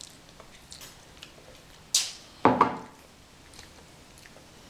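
Small mealtime sounds at a table: faint scattered clicks and chewing, a sharp hiss about two seconds in, then a short loud noise just after.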